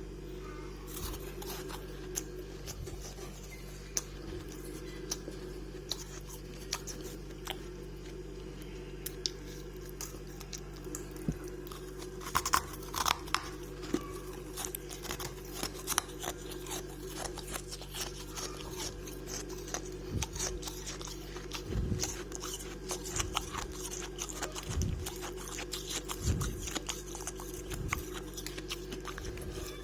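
Close-up crunching and chewing of freezer frost: irregular sharp crackles as the icy frost is bitten and ground between the teeth, over a steady low hum.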